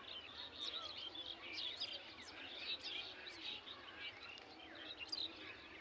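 Many small birds chirping at once, a dense chorus of short overlapping calls, over faint outdoor background noise.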